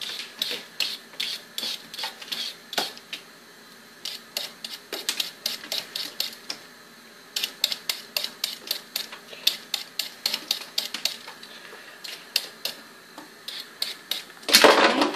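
Hand-held vegetable peeler scraping the skin off a potato in quick repeated strokes, about two or three a second, with a couple of short pauses. Near the end comes a louder burst of noise.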